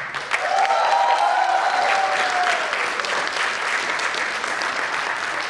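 An audience in a lecture hall applauding as the music stops at the end of a dance performance, with one long high-pitched cheer rising and falling over the clapping in the first couple of seconds.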